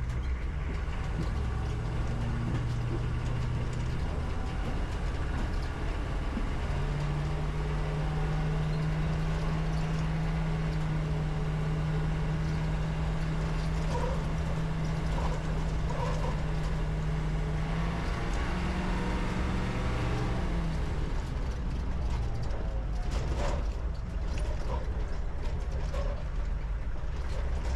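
Humvee's V8 diesel engine pulling the truck along a dirt track. Its pitch climbs a few seconds in and holds high, rises again later, then drops back, with no upshift. The automatic transmission is stuck in first gear, so the engine revs high even after a new kickdown switch.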